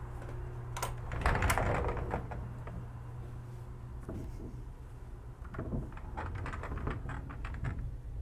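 Latch clicks and a door opening, about a second in, followed by a run of small clicks and knocks over a steady low hum.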